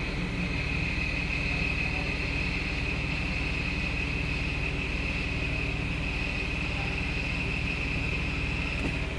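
Jeep Wrangler JK's 3.8-litre V6 running with a steady high-pitched whine over the engine note. The whine comes with the engine cold and in gear, and it stays even with the serpentine belt removed, so the belt and its tensioner are not its cause.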